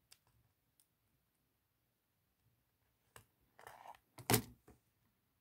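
A few faint clicks of seed beads and needle being handled while stitching beadwork, with a cluster of louder clicks about four seconds in.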